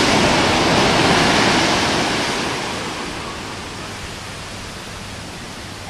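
An ocean wave breaking on the beach with its wash rushing up the sand. The rush is loudest at first and fades over the next few seconds.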